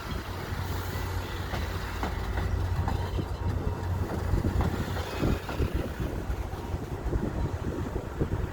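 A train at the platform running with a steady low rumble, with scattered crackles over it.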